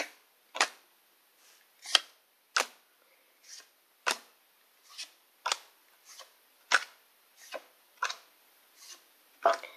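A stack of Pokémon trading cards being flipped through one at a time in the hand. Each card moved gives a short, sharp papery snap, about one or two a second at an uneven pace.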